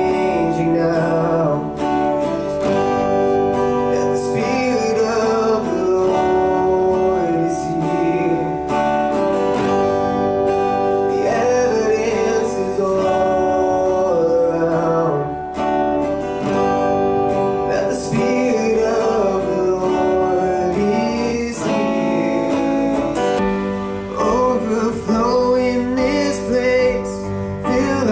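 Acoustic-electric guitar strummed in a slow worship song, with held chords ringing.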